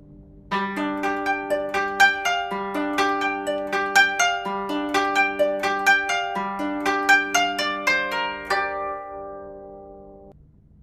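Background music: a gentle, quick run of plucked-string notes, harp-like, that starts about half a second in, stops near the end and rings out to fade.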